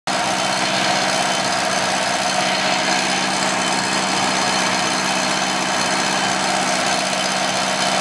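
Target Pro 35 II gas-powered walk-behind concrete saw's four-cylinder engine running at a steady speed, with no revving.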